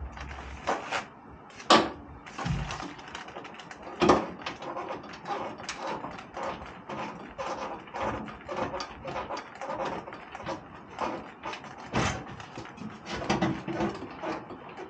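Hand tools working on the Jeep TJ's front fender: a steady run of small metallic clicks, several a second, broken by a few louder knocks, the loudest about 2 and 4 seconds in and again near the end.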